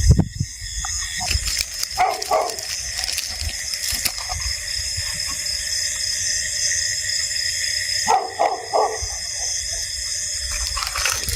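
A dog barking in two short bouts, about two seconds in and again near eight seconds, over a steady high chirring of night insects.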